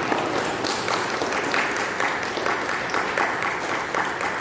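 Applause from a gathered audience: many hands clapping together, dying away near the end.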